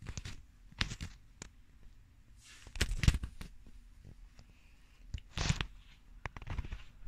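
Irregular handling noises: scattered clicks and knocks with short rustling bursts, the loudest about three seconds in and another about five and a half seconds in.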